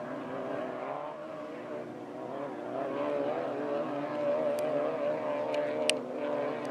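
Off-road race car engine running steadily, its pitch wavering slightly up and down, with a few sharp clicks in the second half, the loudest shortly before the end.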